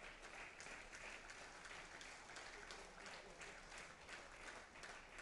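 Faint audience applause: many people clapping steadily.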